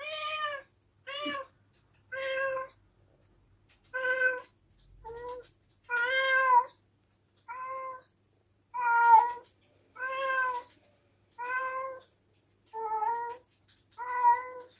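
Domestic cat meowing over and over, about a dozen separate meows roughly a second apart: a cat asking to be let outside.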